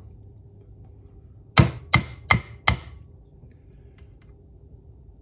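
Four sharp metallic taps in quick succession, each with a short ring: a tight-fitting part being tapped into place in a 4L60E transmission.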